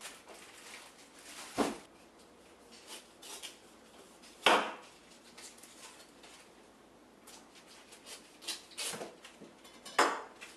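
Cabbage being handled on a kitchen counter and its outer leaves peeled off: crisp snapping and rustling, with four sharp knocks against the counter.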